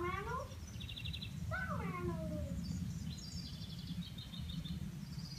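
Wild birds calling in woodland: short high chirps and quick trills, and two longer calls that fall in pitch, one at the start and one about a second and a half in, over a steady low rumble.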